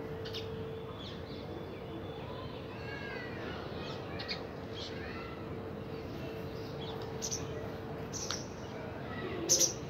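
Birds calling: a scattering of short chirps and calls, the loudest a sharp double call near the end, over a steady faint hum.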